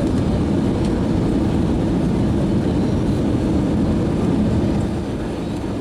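Steady low roar of an airliner heard from inside the cabin, engine and airflow noise, a little louder for the first five seconds and then easing slightly.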